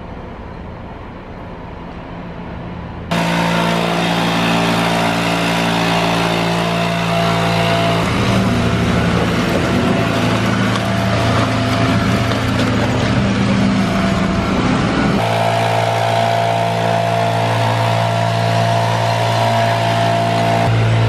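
Street sweeper running: a loud, steady machine drone with a wide hiss. It comes in abruptly about three seconds in, after a quieter stretch.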